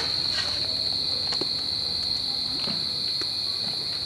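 Crickets chirring in one steady, unbroken high-pitched trill, with a few faint clicks and taps.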